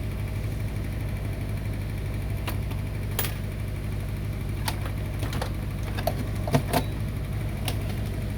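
Steady low hum with several light clicks and taps scattered through the second half, from tools and parts being handled during a UPS repair.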